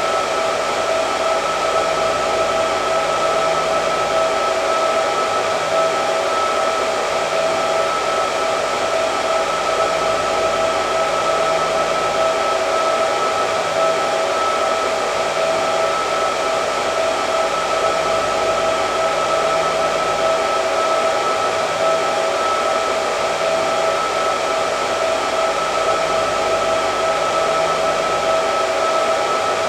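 Hair dryer running steadily: a constant rush of blown air with an even motor whine, unchanging throughout.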